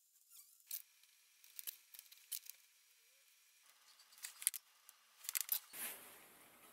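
Faint, sharp clicks and ticks of a printed circuit board and its component leads being handled and worked at a soldering bench. The clicks come in a cluster about four to six seconds in, and a soft hiss comes in near the end.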